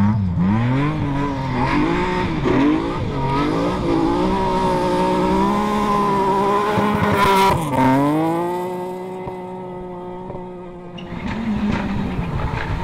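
BMW E36 rally car engine revving hard on a gravel stage, its pitch swooping up and down through gear changes before holding high. A sharp crack comes about seven seconds in, the revs drop and climb again, and the engine then fades to a steadier, quieter note. Near the end another rally car's engine takes over.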